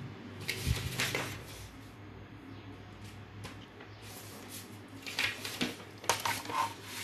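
Brief rustling and handling noises of paper sheets, about a second in and again near the end, over a low steady room hum.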